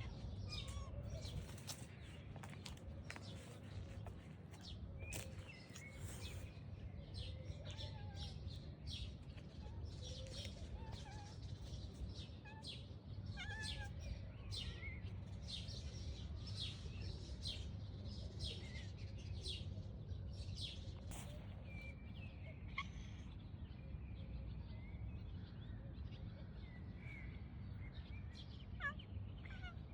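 Small birds chirping: many short, high chirps, denser in the first two-thirds, over a steady low background rumble.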